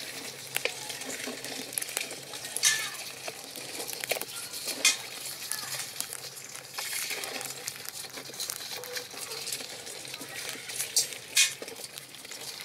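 Live river crabs moving in a steel basin, their legs and claws scraping and clicking against the metal. A few sharp clicks stand out over a steady hiss.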